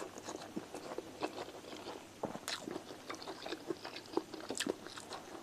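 Close-up mouth sounds of a person chewing a mouthful of rice and chicken with the lips apart: irregular wet smacks and small clicks, with a few sharper clicks. Fingers pull apart a piece of sauced cooked chicken.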